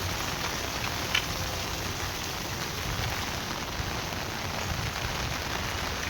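Heavy rain pouring down steadily, an even hiss with scattered drops pattering on surfaces.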